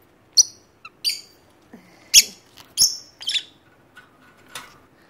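Peach-faced lovebirds giving short, sharp, high-pitched chirps, six or seven at irregular intervals.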